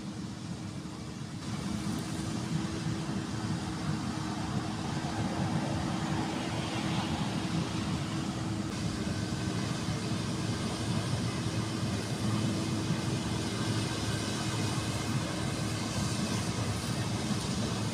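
Claas combine harvester running steadily as it cuts standing wheat, a constant engine hum under a broad threshing noise. It grows louder over the first couple of seconds as the machine comes closer, then holds steady.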